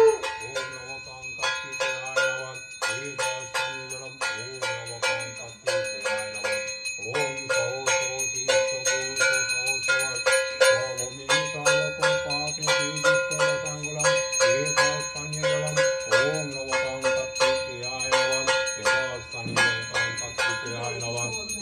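A brass puja hand bell (ghanta) rung continuously with quick strokes, its metallic ringing sustained throughout, with a man's low chanting beneath it.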